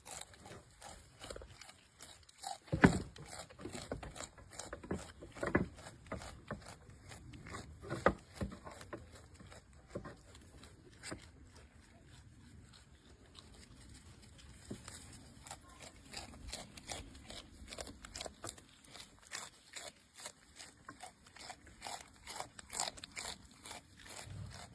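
Goat grazing: a steady run of irregular short crunches and snips as grass is bitten off and chewed, with a few louder ones about 3, 5.5 and 8 seconds in.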